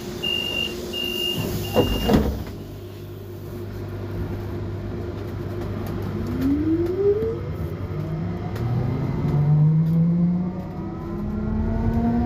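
Solaris Trollino 12M trolleybus: a few evenly spaced high beeps and a thump in the first two seconds, like doors closing. From about six seconds in, the Emit STDa 280-6B traction drive whines up in pitch as the trolleybus pulls away and accelerates, several tones rising together over a steady low hum.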